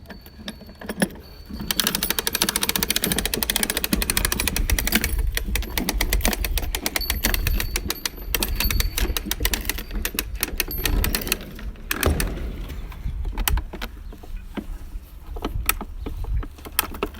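Ratcheting tensioner of a 3M EZ-Line horizontal lifeline clicking rapidly as the lifeline is pulled tight, with scattered clicks and knocks near the end.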